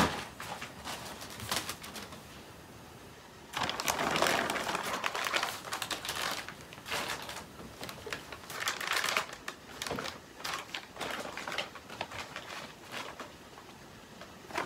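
Plastic-wrapped medical supply packets rustling and crinkling as they are handled and packed into a plastic storage drawer, in irregular bursts with short pauses.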